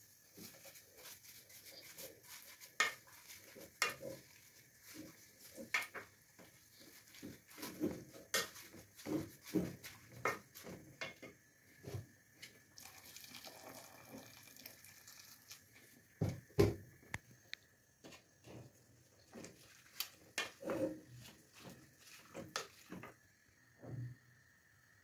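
A wooden spoon stirring and turning kunde (cowpea) leaves in an aluminium pot, with irregular knocks and scrapes against the pot. A faint steady high whine runs underneath.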